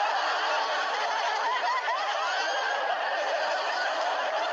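Sitcom studio audience laughing: many voices laughing together, sustained at a steady level.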